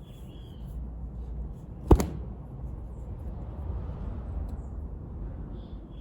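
A single sharp knock about two seconds in, over a low steady rumble.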